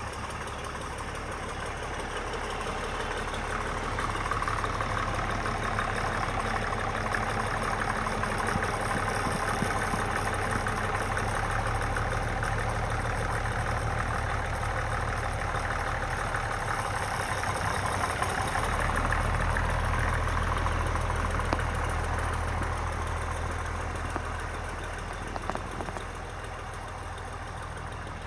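Case 930 Comfort King tractor engine running as the tractor drives around. It grows louder as the tractor comes close and passes, then fades as it moves away.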